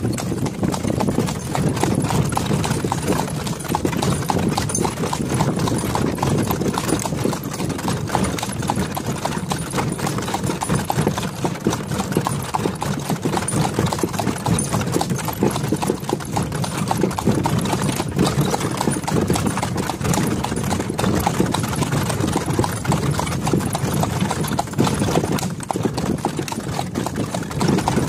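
A horse's hooves clip-clopping steadily on an asphalt road as it pulls a cart.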